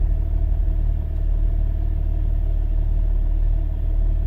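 Car engine running, a steady low drone.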